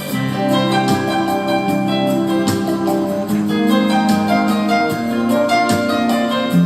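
Background music: an instrumental break of a soft song about sailing, with plucked guitar-like strings.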